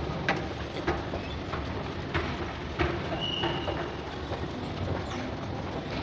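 Escalator running with a steady low rumble, with a few light clicks and knocks and a brief high squeak a little after the middle.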